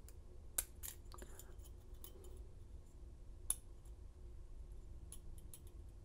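Lishi 2-in-1 pick working the pin stack of a brass padlock: a few small, sharp metallic clicks, the two loudest about half a second and three and a half seconds in, with fainter ticks near the end, as pins are lifted and set.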